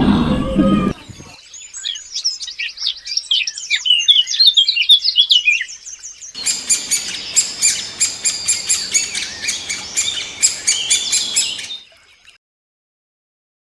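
Birds chirping and squawking: first a run of quick rising and falling chirps, then from about six seconds in a denser, rapid series of sharp calls that stops near the end. A loud low-pitched sound cuts off about a second in.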